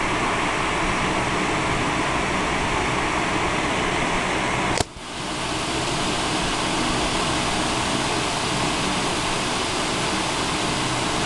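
Electric fan running steadily: an even rushing noise with a faint low hum. About five seconds in there is a click, the sound briefly drops away, then it comes back over about a second.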